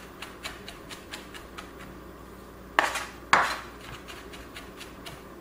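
Chef's knife chopping rapidly on a plastic cutting board, about five or six quick taps a second, mincing a vegetable finer. About three seconds in come two louder, longer strokes.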